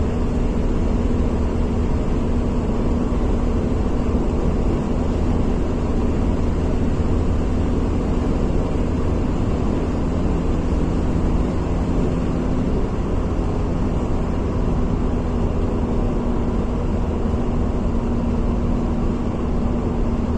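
A steady, low mechanical drone with a constant hum in it, never changing in pitch or loudness.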